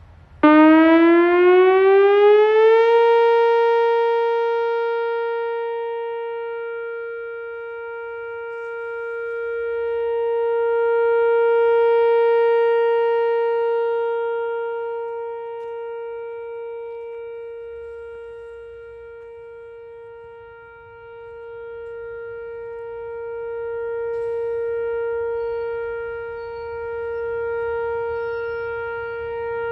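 Whelen WPS 4004 electronic tornado siren sounding a test. It starts about half a second in with a rising wind-up of a couple of seconds, then holds a steady tone near 465 Hz. The loudness swells and fades slowly as the rotating speaker head turns.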